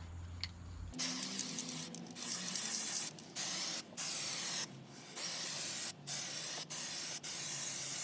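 Aerosol can of Kilz primer spraying, starting about a second in, in about eight hissing bursts with short breaks between them.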